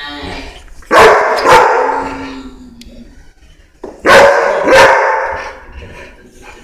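A collie barking in two quick double barks about three seconds apart, with a short whine between them: demand barking for a ball.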